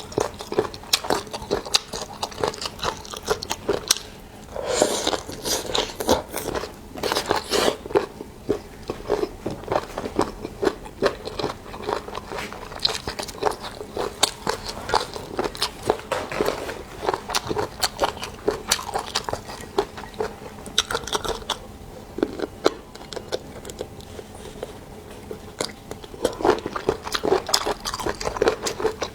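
A person chewing and biting seafood close to the microphone: a long run of quick, irregular wet mouth clicks, with louder bursts of biting about five seconds in and again near the end.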